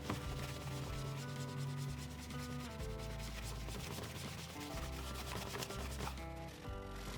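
Quick repeated rubbing strokes of a cloth wiping sticky glue residue off the hand blender's housing with WD-40, over background music with steady notes and a shifting bass line.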